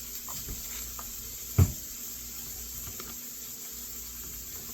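Green beans, onions and bacon sizzling steadily in bacon grease in a frying pan, with a few light clicks and one sharp knock about a second and a half in.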